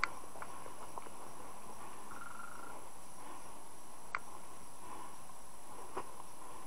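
Steady outdoor background hiss with a high, even insect-like buzz. Three short sharp clicks break it: the loudest right at the start, one about four seconds in and one about six seconds in.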